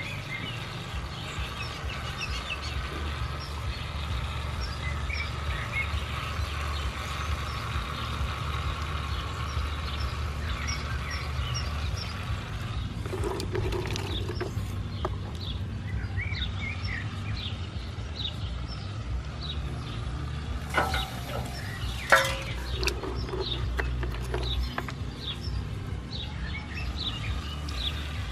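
Small birds chirping again and again over a steady low rumble, with a few knocks and clatters from handling soaked wood chips, the sharpest a little over three-quarters of the way through.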